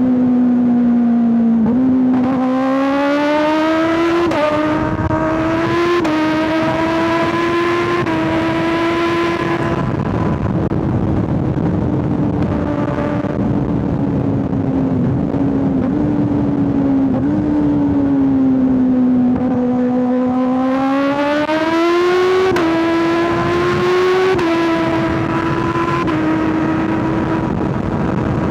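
Kawasaki ZX-6R 636 inline-four engine and exhaust under way: two spells of acceleration through the gears, the pitch climbing and stepping down at each upshift, with steady cruising between them and rushing air underneath.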